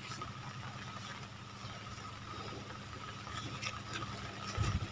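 Shallow river water running over a concrete weir: a steady, quiet rush with a faint low hum under it, and a soft low thump near the end.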